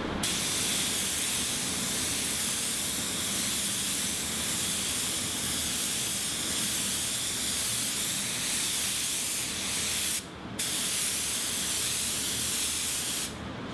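Compressed-air paint spray gun with a 1.2 mm nozzle spraying basecoat onto a car door: a steady hiss, with one short break about ten seconds in, stopping shortly before the end.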